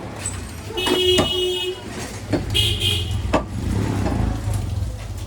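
A vehicle horn sounds twice, about a second in and again near three seconds, over a low steady rumble of traffic, with a few sharp knocks in between.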